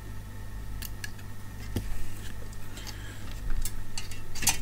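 Scattered light clicks and taps of an ATX computer power supply's circuit board, metal case and output cables being handled as the board is refitted, with a quick cluster of clicks near the end, over a steady low hum.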